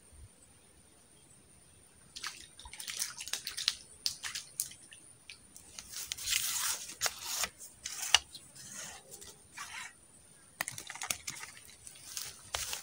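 Irregular wet crackles and small splashes of water right at the microphone, starting about two seconds in and loudest near the middle.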